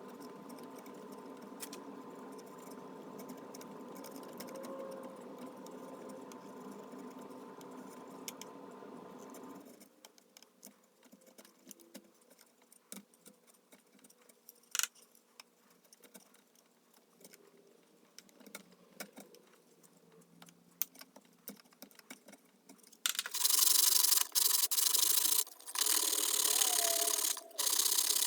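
Wood being worked to blend a glued-in repair piece into the chair: a steady hum for the first third, then a quieter stretch with light clicks and taps, and near the end loud scratchy sanding with brief pauses.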